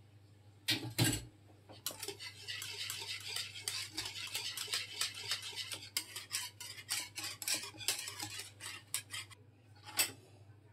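Wire whisk beating a thin liquid chocolate mixture in a metal bowl: two knocks about a second in, then about seven seconds of rapid clicking and scraping of the wires against the bowl, and one more knock near the end.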